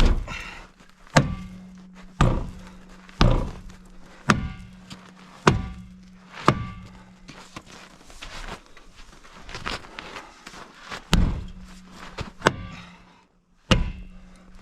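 Heavy hammer blows striking a truck wheel to knock it free of the hub, about one a second, a dozen in all, with a few lighter hits in the middle.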